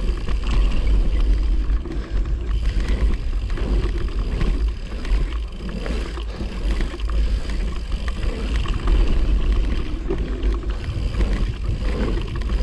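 Wind buffeting the microphone of a mountain bike's action camera, mixed with tyres rolling over packed dirt while riding a pump track. The rumble swells and eases in waves every few seconds over the rollers and berms.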